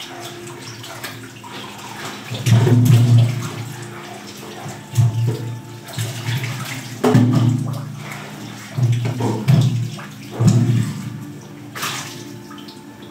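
Kitchen tap running while chayote is washed by hand in the sink. Water splashes in irregular surges every second or two, with occasional small knocks against the sink.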